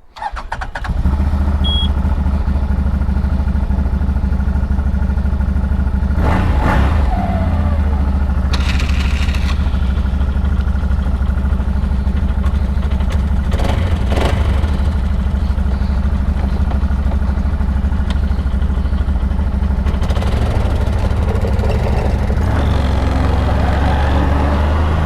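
ATV engine idling steadily, with a few brief clunks along the way.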